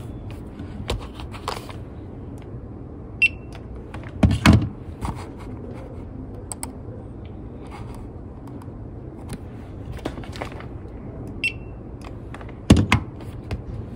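Handheld barcode scanner giving two short high beeps, about three seconds in and again near the end, as library books are scanned. Around them come clicks, rustles and knocks of books and desk items being handled, with the loudest thumps about four and a half seconds in and near the end.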